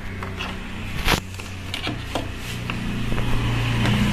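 Clicks and knocks of plastic parts being handled as a washing machine's control board is worked loose, with one sharp click about a second in, over a low steady hum that grows louder near the end.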